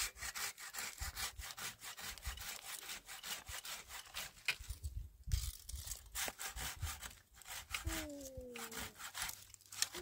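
Hand saw cutting through a dry dead tree branch in quick, steady rasping strokes, with a brief pause about five seconds in. Near the end a voice gives two short falling calls.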